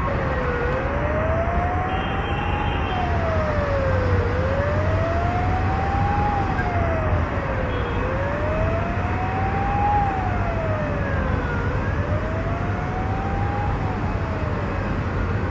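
A siren wailing, its pitch rising slowly and falling again about every four seconds, over a steady low rumble that fits the Il-76's jet engines.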